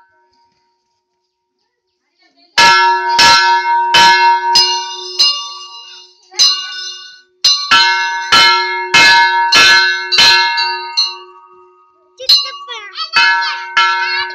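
Hanging metal temple bell rung by pulling its rope. It clangs in repeated strokes, about one and a half a second, each ringing on into the next. The strikes start a couple of seconds in, fade out, then come again in a quicker, busier run near the end.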